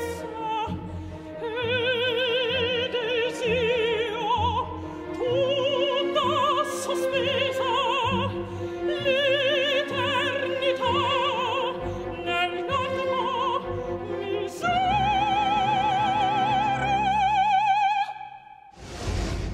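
Female opera singer performing an aria with wide vibrato, accompanied by a symphony orchestra, ending on a long held high note near the end. The music cuts off and a short burst of noise follows just before the end.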